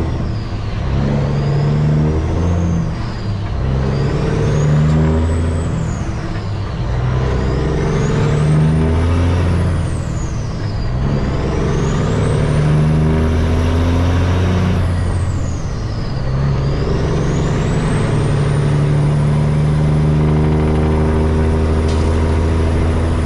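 Heard from inside the cab, a 2006 Peterbilt 379's CAT C15 diesel accelerating and shifting up through the gears, with about five climbs in revs, each cut off by a drop at the shift. A high turbo whistle climbs with the revs in each gear and falls at each shift. The last and longest pull comes in the second half.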